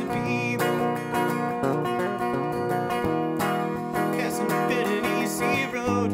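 Strummed chords on a semi-hollow electric guitar with a man singing over them.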